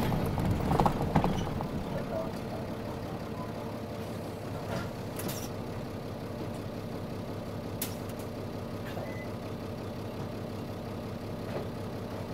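Nissan Diesel Space Runner bus's diesel engine idling steadily, heard from inside the bus, with a few faint clicks.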